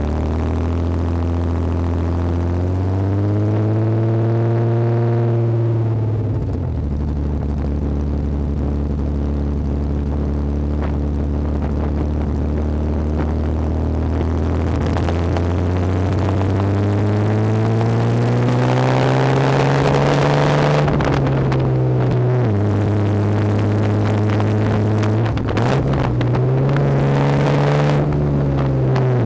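Jaguar E-Type's exhaust at the tailpipes while driving. The engine note climbs under acceleration and drops sharply at several gear changes, with steady cruising stretches between, and wind rushes over the microphone. The owner says the carburettors still need tuning.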